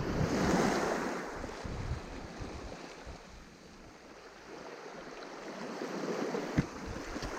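Small sea waves washing on the shore, twice swelling and then easing off, with a single sharp click near the end.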